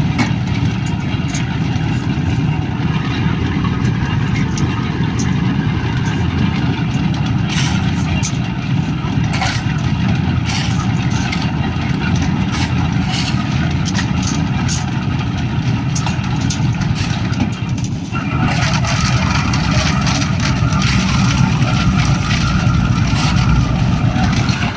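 An engine running steadily with a low rumble, with scattered sharp knocks and clanks over it; the sound dips briefly and then comes back a little brighter near the end.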